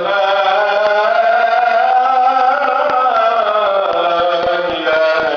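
A man's voice chanting the Islamic call to prayer (adhan), drawing out one long ornamented note with slow bends in pitch and moving to a new note near the end.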